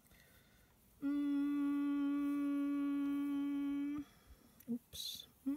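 A woman's voice holding a steady, flat-pitched "mmm" for about three seconds after a short pause: the sound of the letter M. A brief hiss follows near the end.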